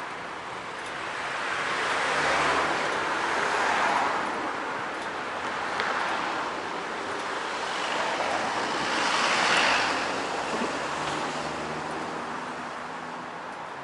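Road traffic heard from a moving bicycle: vehicles pass close by twice, each a rising and fading rush of tyre noise with a low engine hum, about two seconds in and again about nine seconds in.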